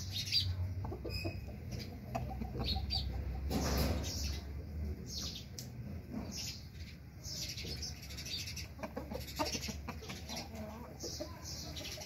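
Aseel game fowl clucking in short, scattered calls, with one louder rustle or flap about four seconds in.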